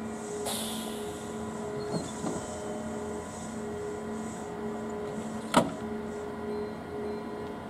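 Kintetsu 21000 series Urban Liner Plus standing at a platform, its onboard equipment giving a steady hum with a low and a higher tone that come and go. A brief hiss sounds about half a second in, and a single sharp click about five and a half seconds in.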